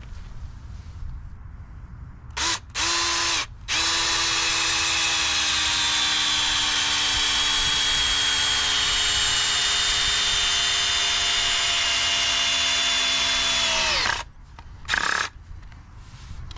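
Red cordless drill boring a pilot hole into pressure-treated lumber: two short trigger spurts, then one long steady run whose pitch slowly sinks as the motor bears down. It winds down about fourteen seconds in, followed by one brief spurt.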